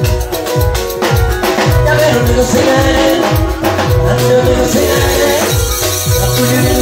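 Live ohangla band music played loud: deep drum beats that each drop in pitch, about three a second, under a sung melody.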